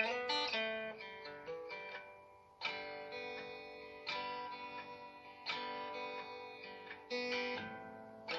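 Background music of strummed acoustic guitar chords. A new chord is struck about every second and a half and left to ring and fade.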